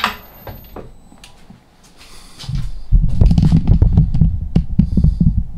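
A click, then the faint whine of the Myford Super 7B lathe's inverter-driven three-phase motor fades out as the spindle runs down to a stop. From about two and a half seconds in come loud, irregular low rumbles and knocks of the handheld camera being moved and handled close to its microphone.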